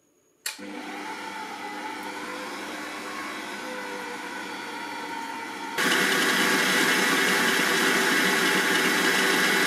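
Silvercrest SKM 650 A1 stand mixer motor switching on about half a second in and running steadily at a low speed, then about six seconds in stepping up to a higher speed and running much louder and higher-pitched.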